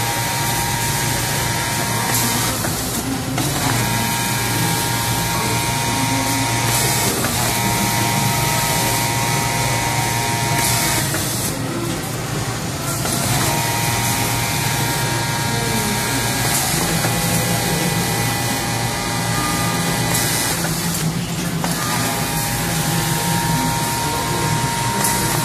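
Automatic serging machine running: a steady mechanical hum and whine that drops out briefly a few times, about 3 s in, around 7 s, for a longer stretch near 12 s, and again around 21 s.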